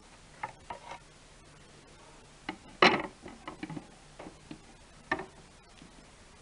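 Clicks and knocks of a thin flat panel being handled and laid on top of a small box, with one louder knock about three seconds in.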